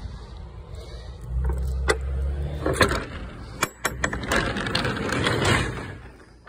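Metal door latch on a box truck's rear door clicking and clanking as it is released, then the spring-lift roll-up door rattling as it rolls up, for about two seconds near the end.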